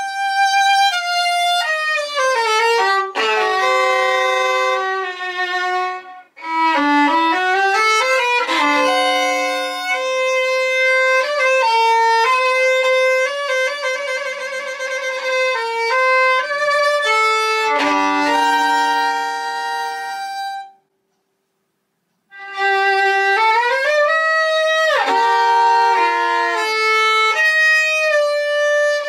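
Solo violin played with the bow: a melody of held notes, some sliding from one pitch to the next. The sound cuts out completely for about a second and a half about two-thirds of the way through, then the playing resumes.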